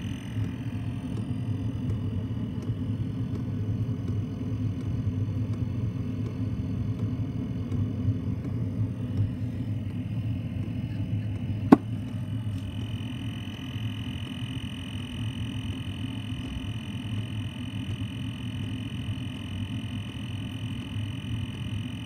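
5 kW Chinese diesel heater running on a half diesel, half cooking-oil mix: a steady low rumble. A thin high whine fades for several seconds and comes back about halfway through, and there is one sharp click just before it returns.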